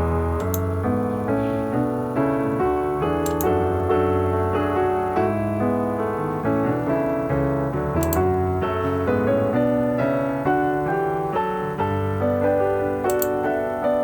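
Background piano music: a continuous melody of notes, each struck and then fading.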